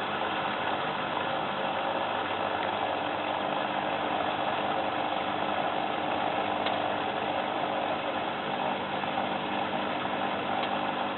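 Tricity Bendix AW440 washing machine running steadily mid-cycle, its motor turning the drum with an even mechanical hum.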